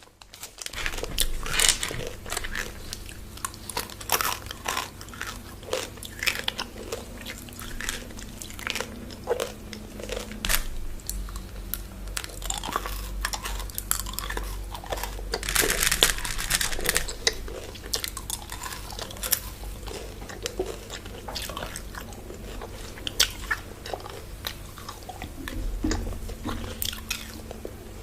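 Close-miked biting and chewing of crunchy chocolate bars, with irregular crisp crunches throughout and a denser run of crunching about halfway through.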